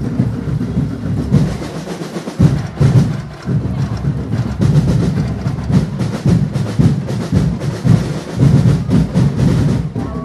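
Festival drum ensemble playing a fast, dense drum beat, with wood-block-like strikes over the drums. The drumming thins briefly about two to three seconds in, then comes back strongly.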